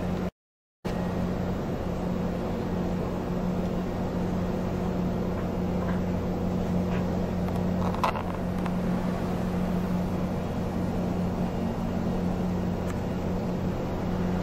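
Steady low hum of a ship's machinery, with a hiss of wind and sea over it; the sound cuts out briefly near the start.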